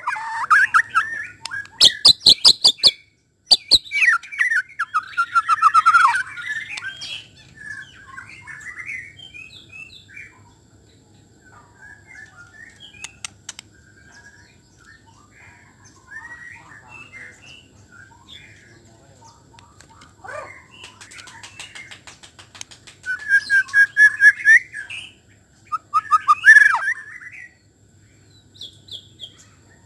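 White-rumped shama singing: loud, varied phrases with whistled notes and rapid runs of sharp notes in the first seven seconds and again near the end, with softer scattered notes in between.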